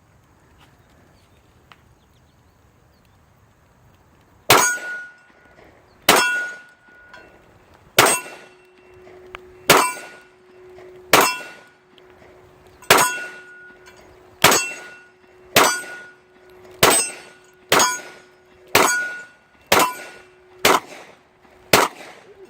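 A mud-covered 9mm Glock 17 pistol firing about fourteen slow, evenly paced shots, starting about four and a half seconds in, each answered by the ringing clang of a steel target. The pistol keeps cycling despite the muck.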